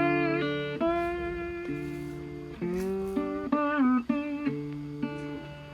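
Background music: plucked guitar notes, some sliding in pitch.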